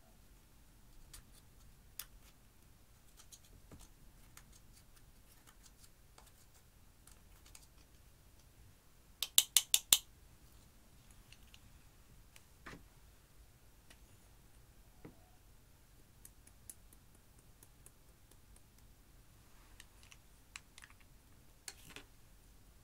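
Faint scattered clicks and scrapes of a thin tool and plastic eyeshadow compacts against the pans and glass dishes as powder is broken out. About nine seconds in comes a quick run of about six sharp taps, the loudest sound here, with a few more isolated clicks near the end.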